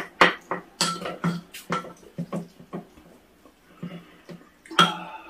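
Cutlery clinking and knocking against bowls and dishes during a meal, in irregular clinks, some ringing briefly, with a louder ringing clink near the end.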